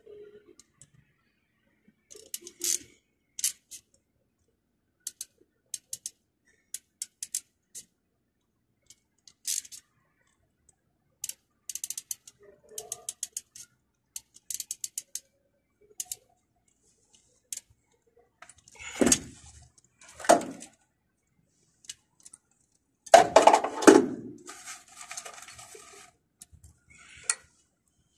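Scattered sharp metallic clicks and snips of hand pliers working thin thermostat control wires, with a few louder rustling, scraping bursts of the gloved hands handling the wire bundle, the longest about two thirds of the way through.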